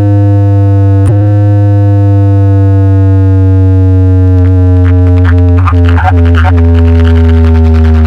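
Very loud electronic music from a DJ sound system: a held synthesizer tone over heavy, steady bass, its pitch slowly sinking, with a short choppy, stuttering passage about five to six seconds in.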